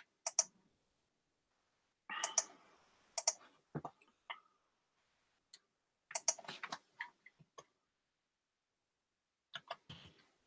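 Computer keyboard typing and mouse clicks in short, scattered bursts with pauses between.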